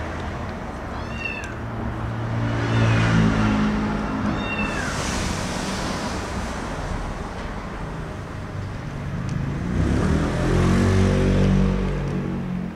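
Domestic tabby cat making low, drawn-out calls beside a dog while it eats: one long call about two seconds in and another around ten seconds in, with a few short high chirps near the start.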